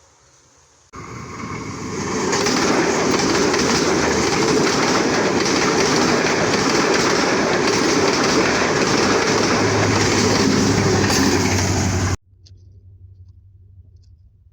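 Loud, steady rushing rumble that starts suddenly about a second in, grows louder a second later, and cuts off abruptly near the end.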